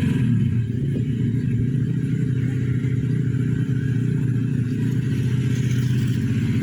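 Small model aircraft engine of an F2B control-line stunt plane running steadily at a high, even rate, settling to a lower steady note right at the start.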